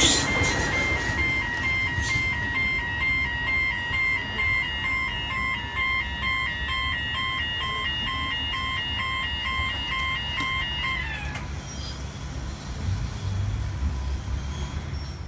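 Level crossing warning bells ringing in an even repeating pulse as the tail of a Waratah double-deck electric train clears the crossing, the train noise fading over the first second or two. The bells stop about eleven seconds in, leaving a low rumble.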